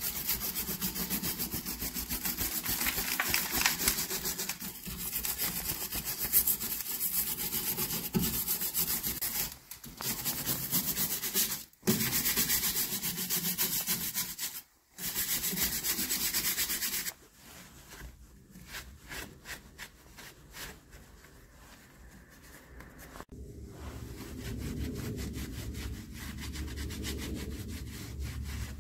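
A flat wooden stick scrubbed rapidly back and forth over the rust on a brake drum's face, a dense rasping scrape broken by a few short pauses. After about seventeen seconds the strokes turn sparser and quieter, and near the end they give way to a softer, duller rubbing as a cloth wipes the drum.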